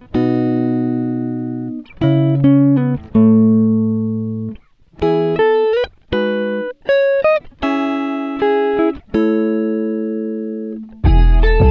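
Background music: a melody of held notes and chords, each fading away, with short breaks between phrases. Near the end a louder, fuller passage with deep bass comes in.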